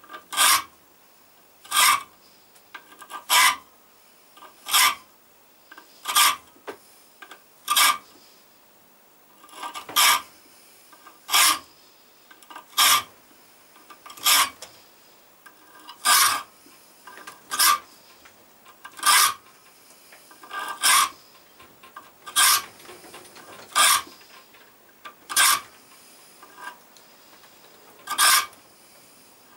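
Hand file rasping across the spine of a steel knife blank held in a bench vise, cutting small grip notches. Slow, regular strokes, about one every second and a half, each a short scrape, with a short pause partway through.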